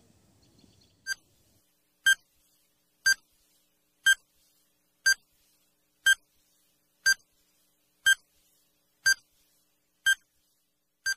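Quiz countdown timer sound effect: short electronic beeps, one per second, about ten in a row, counting down the seconds to the answer.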